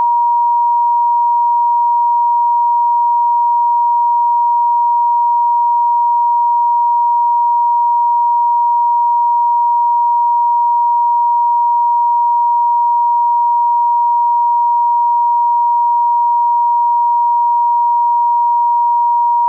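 Telephone line tone: a single steady pitch just under 1 kHz, continuous and unbroken. It is the off-hook warning tone of a handset left off the hook.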